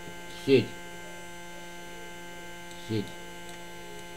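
Steady electrical mains hum, a constant buzz with many evenly stacked overtones. Two short spoken sounds break through it about half a second and about three seconds in.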